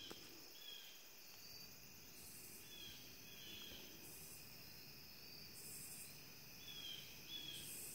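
Faint insect chorus: a steady high trilling, with a harsher high buzz coming in about every two seconds and short falling chirps now and then.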